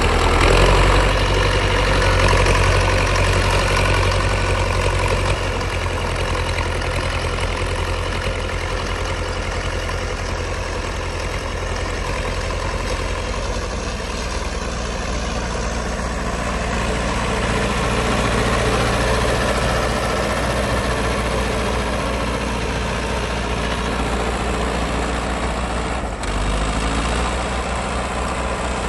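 Diesel engines of a T-40 and a Belarus MTZ-82 tractor running steadily under load as the tractors push through deep snow. The engine note changes abruptly near the end.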